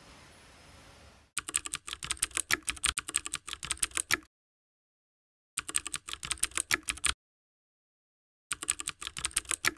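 Computer-keyboard typing sound effect: three bursts of rapid key clicks starting about a second in, the first about three seconds long and the others about a second and a half, with dead silence between them. They go with caption text being typed onto the screen.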